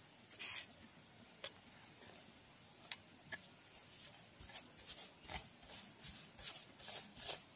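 Stone pestle grinding fried peanuts and chilli paste in a flat stone mortar (cobek): a few scattered taps at first, then, from about halfway, quick rasping strokes of stone on stone, about three a second and growing louder.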